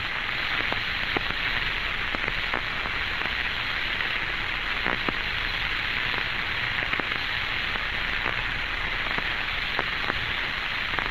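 Steady radio static hiss with a few scattered faint clicks on the Friendship 7 capsule communications recording, an open channel with no one transmitting; the sound is narrow and band-limited, typical of 1962 air-to-ground radio.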